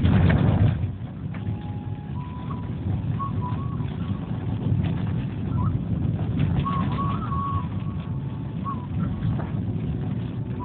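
Car driving on a wet, potholed road, heard from inside the cabin: a steady low rumble of engine and tyres. A brief louder rush comes at the very start as the windscreen wiper sweeps across.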